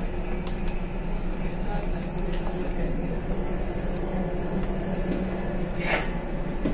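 Steady low drone of a ferry's engines heard inside the passenger cabin, with a brief rustle about six seconds in.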